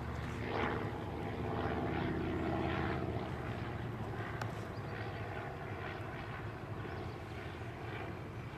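Piston engine and propeller of a light high-wing monoplane droning as it flies overhead, louder over the first three seconds and then fading a little as it moves away.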